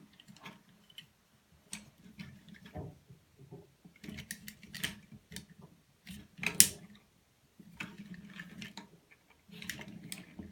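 Light plastic clicks and taps of a plastic Transformers figure being handled and stood on a surface, scattered irregularly, with the sharpest knock a little past the middle.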